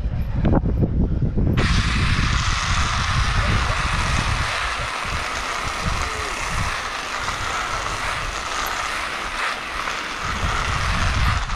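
Wind buffeting the microphone during a fast downhill ride. From about a second and a half in, a steady hissing road noise comes in, the rub of the rider on the wet road surface, and it holds to the end.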